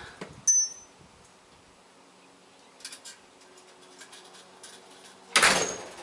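An exterior door being closed: a sharp metallic click about half a second in, a few faint clicks near three seconds, then the door shuts and latches with a loud thud about five and a half seconds in.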